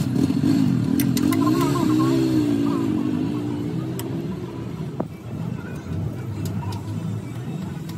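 Steady low hum of a running vehicle engine, with a wavering tone over it for the first few seconds, and a few sharp metal clicks of a wrench on the truck differential carrier's nuts, the sharpest about five seconds in.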